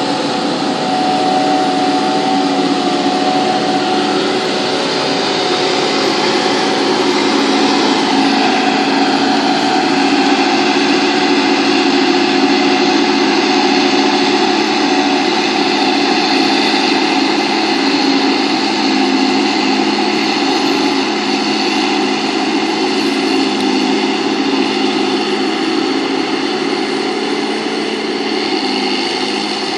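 Self-propelled forage harvester chopping maize, its engine and chopper running steadily with several steady tones from a low hum up to a high whine, together with the engines of the tractors hauling the silage trailers alongside.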